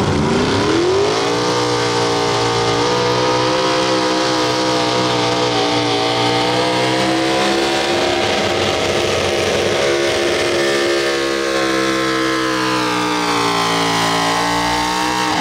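Modified four-wheel-drive pulling truck's engine at full throttle as it launches and drags the weight-transfer sled. The revs climb sharply in the first second, hold high and steady through the pull, sag a little late on, then climb again near the end.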